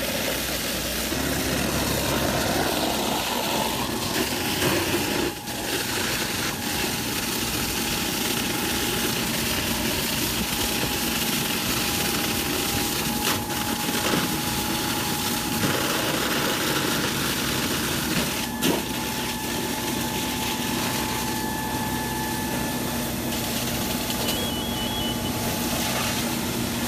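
A fire apparatus engine running steadily at pump speed, a constant hum, under a continuous rushing noise of fire hose streams spraying onto burning big rigs. One sharp knock stands out about two-thirds of the way through.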